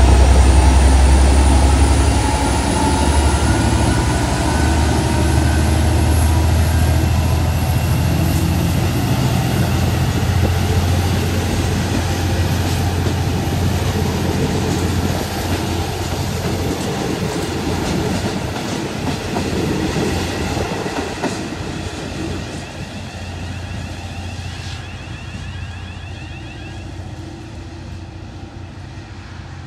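V/Line N class diesel-electric locomotive (EMD two-stroke diesel) working hard as it pulls away, its deep engine rumble giving way to the carriages rolling past with wheels clicking over the rail joints. The whole train fades steadily as it draws off round the curve.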